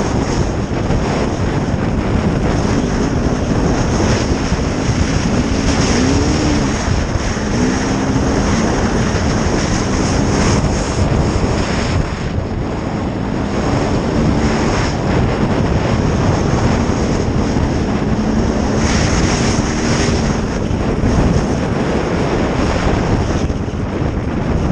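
Sherco SE-R 300 two-stroke single-cylinder enduro motorcycle engine under way, its pitch rising and falling again and again as the throttle opens and closes, with wind noise on the microphone.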